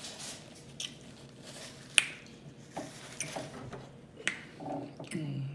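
Close-miked chewing and biting of fast food, with scattered sharp crisp clicks, the loudest about two seconds in, and a brief low hum of the voice near the end.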